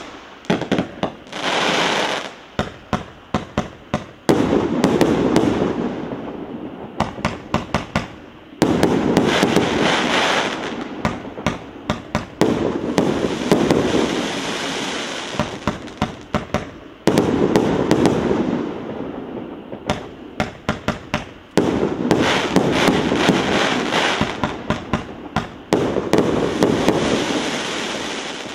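A 100-shot consumer fireworks cake firing: quick runs of sharp shots alternate with several-second stretches of dense crackle that fade away, over and over.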